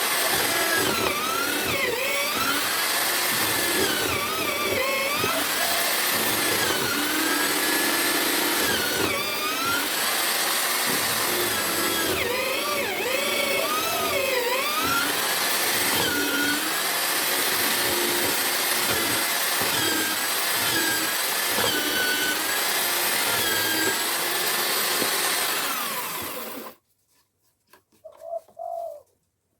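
Drill motor of a homemade drill-powered wood mortiser running while it cuts a mortise, its pitch repeatedly dipping and recovering. It cuts off suddenly near the end.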